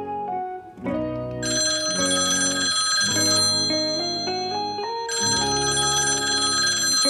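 Background music playing a stepping melody, with an alarm clock ringing sound effect laid over it in two spells of about two seconds each, the first starting about a second and a half in and the second about five seconds in.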